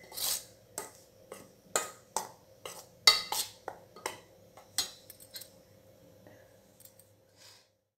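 Steel spoon scraping and clinking against a stainless steel bowl as dry gram flour and rice flour are stirred together, in quick irregular strokes that thin out after about five seconds.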